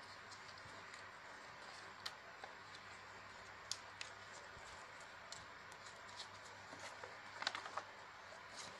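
A sheet of grid paper being folded and creased by hand: faint rustles and sharp little crackles over a steady hiss, with a quick cluster of crackles near the end.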